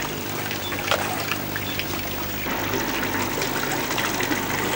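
Small garden pond fountain, thin jets of water splashing steadily into a shallow pond, over a low steady hum.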